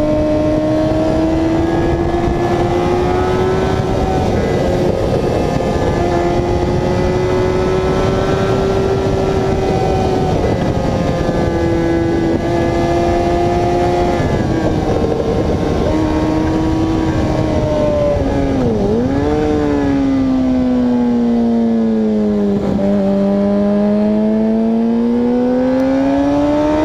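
Onboard sound of a motorcycle engine at speed on a racetrack, under heavy wind rush. The engine note holds high with small shifts, dips sharply about two-thirds of the way in, falls low again shortly after, then climbs steadily as the bike accelerates.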